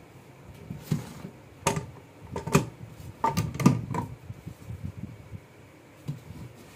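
Metal parts of a homemade drill jig clicking and knocking as it is handled: the drill shaft and its carriage being set on the steel guide rods. There are about eight sharp clicks with a short ring, most within the first four seconds and one more around six seconds in.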